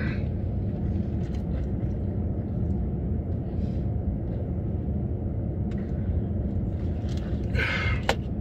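Steady low rumble of an idling car engine heard inside the cabin, with a short rustling noise and a click near the end.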